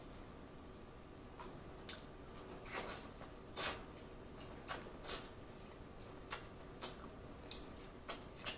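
Close-miked mouth sounds of a person eating instant noodles: about ten short wet slurps and smacks, spaced irregularly, the loudest about three and a half seconds in.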